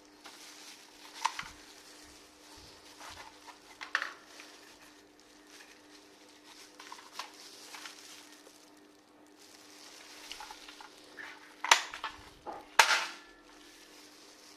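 Scattered clicks and clatter of toy guns being handled, with two louder, sharper snaps about twelve and thirteen seconds in, over a faint steady hum.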